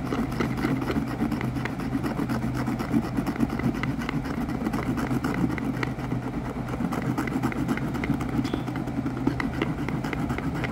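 Scratch card being scraped rapidly with short repeated strokes, rubbing off its silver coating while it rests on a cardboard box, over a low steady hum.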